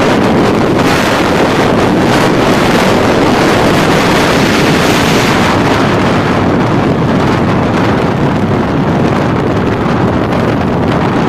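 Wind rushing hard over the microphone of a KTM RC motorcycle riding at road speed, with the bike's engine and tyre drone underneath. A steady loud roar, the hiss easing a little past the halfway mark.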